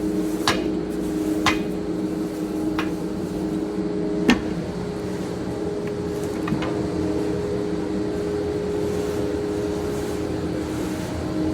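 Compression bagging baler running with a steady mechanical hum, with a handful of sharp knocks and clicks in the first half, the loudest about four seconds in.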